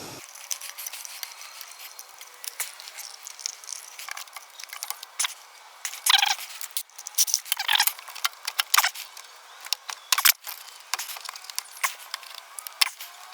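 Irregular metallic clicks, rattles and scrapes as a screw-type hose clamp and the drain hose are worked by hand onto a front-load washing machine's pump fitting, with a few sharper clatters partway through.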